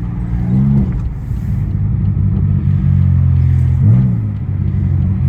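Catless exhaust of a tuned Pontiac Grand Prix GT's V6 droning steadily while driving, the engine note swelling up in pitch briefly twice, about a second in and about four seconds in.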